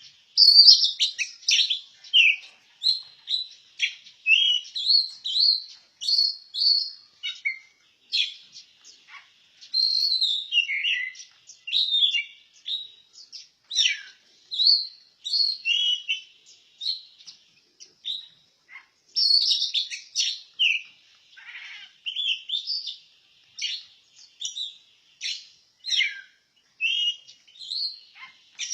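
Oriental magpie-robin (kacer) singing: a steady run of short, varied whistled phrases and chirps, rising and falling notes with brief gaps between them.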